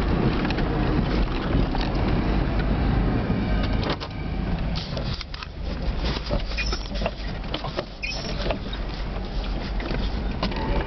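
The 1999 3/4-ton Suburban plow truck running, heard from inside the cab as it pushes snow. A steady, loud rumble lasts about four seconds, then drops quieter, with scattered knocks and clunks.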